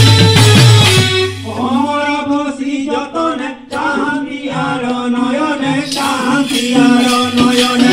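Devotional folk singing by men, a sung line over a steady harmonium drone. Percussion plays along loudly for about the first second and a half, drops out while the voice sings, and comes back in near the end.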